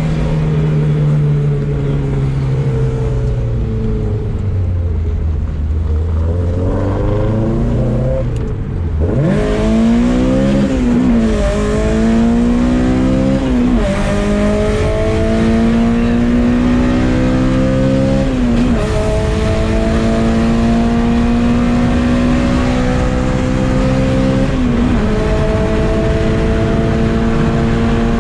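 Honda four-cylinder VTEC sports car engine under a hard acceleration pull: the revs fall at first, then from about nine seconds in climb steeply and rise through the gears, dropping sharply at each of about four upshifts.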